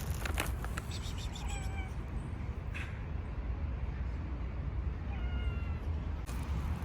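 A cat meowing twice, short pitched calls about a second in and again about five seconds in, over a low steady rumble.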